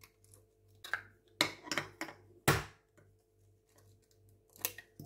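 Eggs being cracked on the rim of a bowl and emptied into it: a few short, sharp knocks and taps, the loudest about a second and a half and about two and a half seconds in, with another pair near the end.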